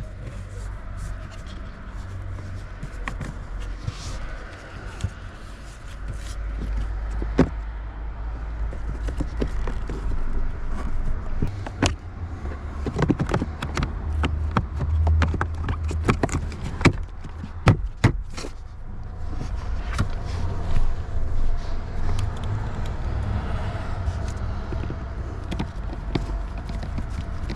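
Scattered sharp clicks and knocks over a steady low rumble, thickest in the middle of the stretch.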